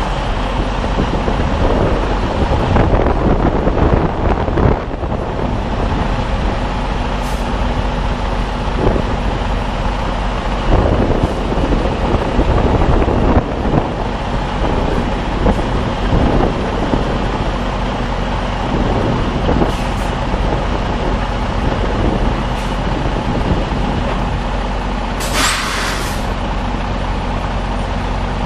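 Semi tractor's diesel engine running steadily at low speed as the tractor-trailer is maneuvered, with a few knocks. Near the end, a sharp hiss of air from the truck's air brakes lasts about a second.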